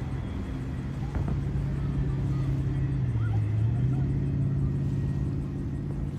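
Watercraft engine running steadily, its pitch dipping about three seconds in and then rising back.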